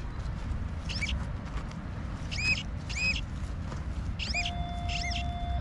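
A small bird chirps five times in short rising-and-falling notes over a low rumble. Near the end a steady, even tone starts and holds.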